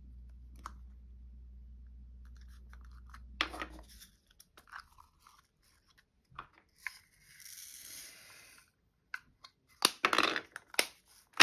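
Small plastic diamond-painting drill containers being handled: flip-top lids clicking, a short granular rush of resin drills poured from one container into another just past the middle, then a cluster of louder plastic clacks and drill rattles near the end.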